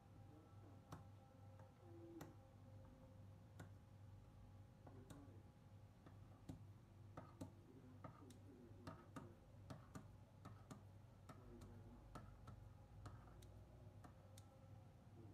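Faint, irregular clicks of kitchen scissors snipping a rope of bread dough into pieces, several a second at times, over a steady low hum.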